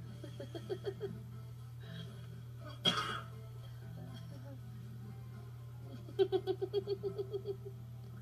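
A person laughing in quick repeated bursts, briefly near the start and again for about two seconds near the end, with one short sharp burst like a cough about three seconds in, over a steady low hum.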